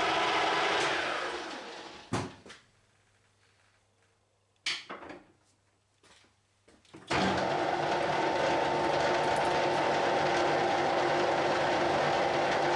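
A lathe's motor and spindle running down to a stop. A few sharp clicks and knocks follow in the quiet. A little over seven seconds in, a steady machine whirr starts abruptly.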